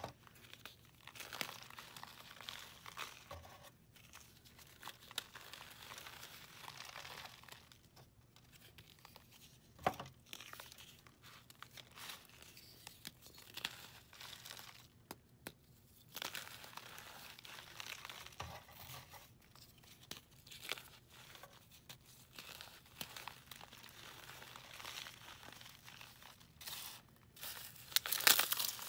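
Dry floral foam dusted with gym chalk and baby powder being crushed and crumbled by hand: soft, irregular crackling and crunching with brief pauses, a sharp crack about ten seconds in, and louder crunching near the end.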